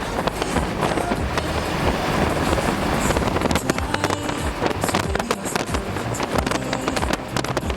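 Strong gusty wind buffeting the microphone, a continuous rush with constant crackling distortion.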